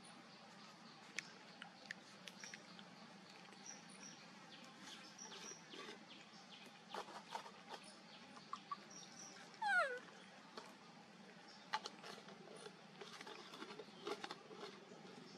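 Baby macaque giving one short squeal that falls in pitch, about ten seconds in, over faint high chirps and scattered small clicks.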